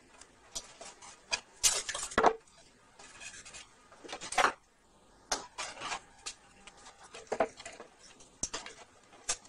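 Masking tape being pulled off its roll, torn and pressed onto a speaker cabinet's top, with the roll and hands knocking on the cabinet: an uneven string of short rasps and clicks.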